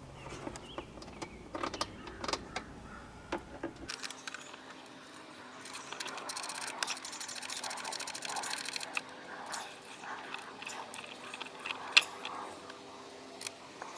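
Metal clinks, clicks and rustling of hand tools and parts during work on a winch's power-cable connections, with a run of rapid, even clicking for about three seconds in the middle and one sharp click near the end.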